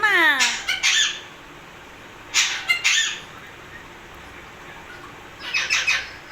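Pet parrot squawking in short bursts: a falling call and a couple of harsh calls at the start, a pair about two and a half seconds in, and another cluster near the end.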